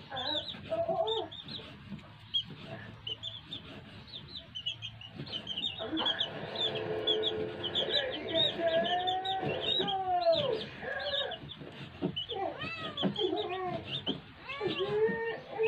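Chickens clucking, with a steady chatter of high chick peeps over them, and a few knocks of a knife on a wooden chopping block.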